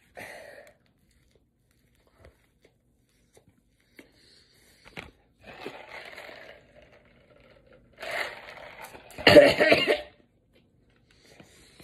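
Coughing and chewing noises from a mouth stuffed with hamburger, in a few short bursts; the loudest comes just before ten seconds in.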